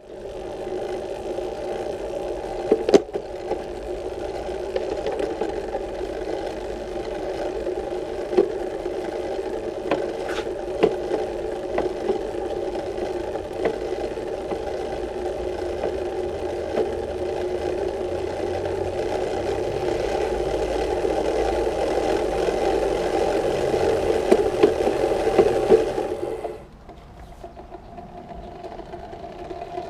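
Road bike drivetrain running, the chain turning over the chainrings and front derailleur with a steady whir and a few sharp clicks. It drops off sharply about 26 seconds in.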